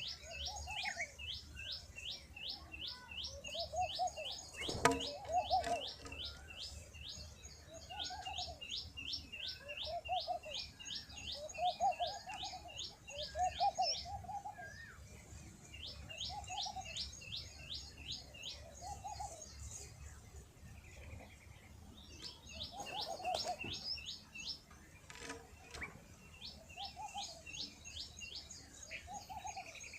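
Birds calling: runs of rapid, high-pitched chirps, about five a second, stop and start over several seconds. Lower, short calls repeat every second or two beneath them. A single sharp knock comes about five seconds in.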